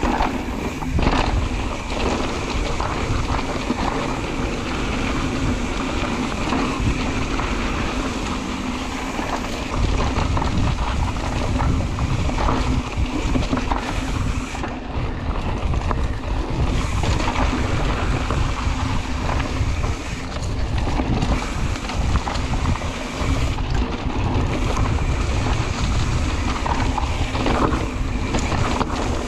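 Mountain bike riding cross-country trail, heard from a camera on the bike or rider: steady wind noise buffeting the microphone, with scattered clicks and rattles from the bike over bumps. The low wind rumble gets heavier about ten seconds in.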